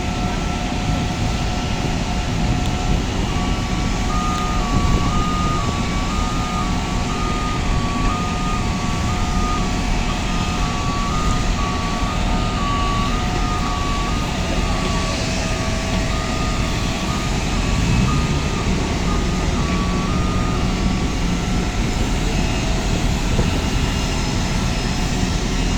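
Steady rumbling hum of aircraft and ground equipment on an airport apron, with a few constant whining tones. From about three seconds in until near the end, an electronic warning beeper alternates between two pitches at a steady pace.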